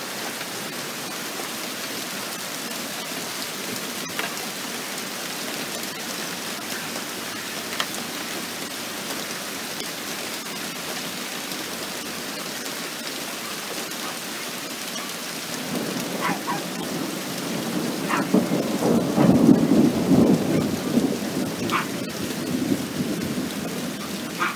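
Rain falling steadily in a thunderstorm, with a few sharp ticks. About two-thirds of the way through, a long roll of thunder swells in, peaks, then rumbles away.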